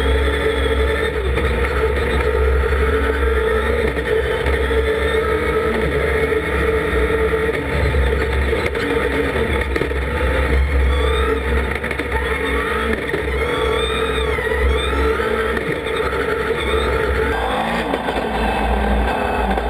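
Dacia Duster rally race car heard from inside the cabin, its engine revving hard and rising and falling in pitch through gear changes. The engine sound changes abruptly near the end.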